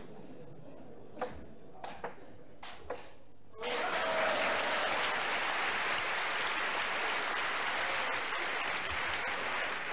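A table tennis ball clicks sharply off bat and table a handful of times, then the audience breaks into loud applause about a third of the way in that runs on steadily for about six seconds.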